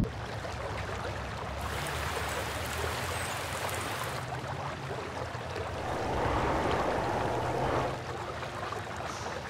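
A steady rushing, water-like noise sound effect, with a brighter hiss from about two to four seconds in and a fuller rush swelling around six to eight seconds in.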